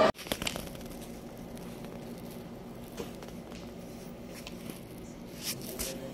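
Quiet room tone with faint rustling and a few soft clicks, a little stronger near the end.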